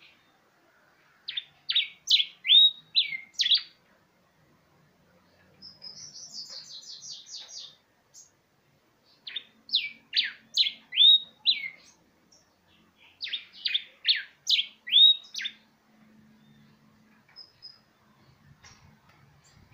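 Hybrid songbird, a cross of an aurora and a yellow cardinal, singing three loud phrases a few seconds apart, each a quick string of six to eight sharp, downward-slurred notes. Between the first two phrases comes a softer, fast high trill.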